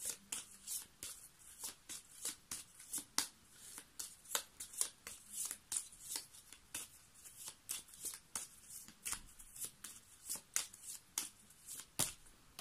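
A deck of fortune-telling cards shuffled by hand: a quick, irregular run of crisp card snaps, about two to three a second, with a louder snap near the end.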